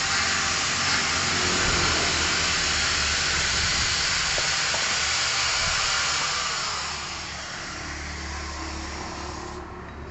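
Honda Karisma motorcycle engine running fast with a loud hissing noise, then settling to a lower steady run about seven seconds in.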